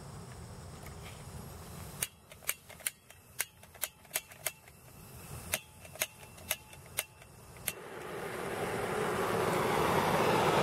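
Hand-held gas torch's igniter clicking about a dozen times, roughly twice a second, then the flame catching about eight seconds in, its hiss growing steadily louder.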